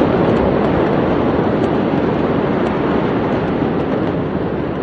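Large port warehouse fire heard from a distance: a loud, steady rumbling roar, with a few faint crackles over it.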